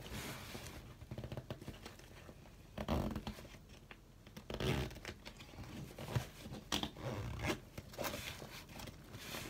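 Zip on a fabric backpack being pulled shut in several short, uneven strokes, with the fabric rustling as the bag is tugged.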